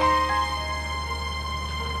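Background music: slow held notes ringing on, with new notes entering one by one, each a little lower.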